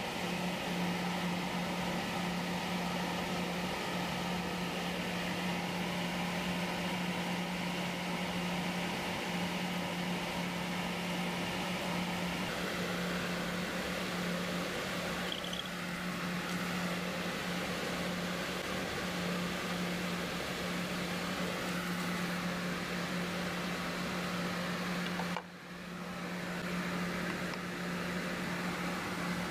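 Shop machinery running steadily: a motor hum over a rushing-air hiss, dipping briefly about 25 seconds in.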